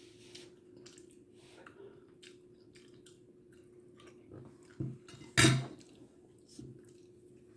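Small clicks and taps of cutlery and dishes, with a short knock near the middle and one loud clatter about five and a half seconds in, over a faint steady hum.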